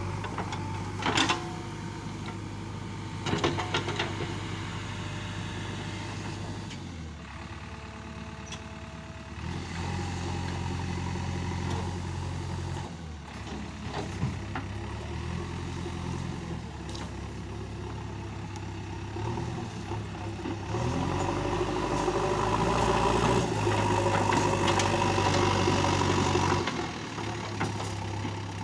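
JCB 3DX backhoe loader's diesel engine running and changing speed as the backhoe digs, with a few sharp metallic clanks in the first four seconds. For several seconds near the end the engine runs louder and higher.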